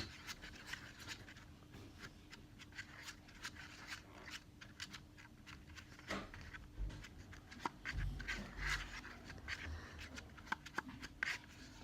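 Tiny spoon stirring glue and water in a small container, with many quick scrapes and clicks against its sides.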